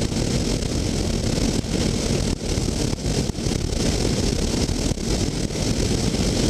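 Steady rush of wind and engine noise from a motorcycle cruising at freeway speed, with wind buffeting the microphone.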